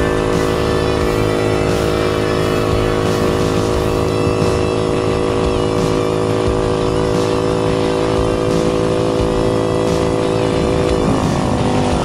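American Sportworks Carbide 150cc go-kart engine running at a steady high speed, held near its top speed. About eleven seconds in, the engine pitch starts to fall and loses its steady tone.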